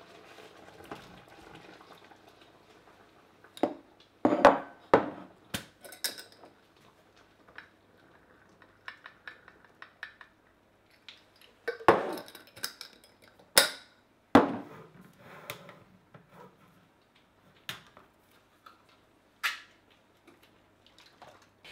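Kitchen clatter as curry ingredients are tipped into a frying pan: a string of separate knocks and clinks of a bowl, jars and utensils against the pan and worktop, loudest about four seconds in and again around twelve to fifteen seconds in.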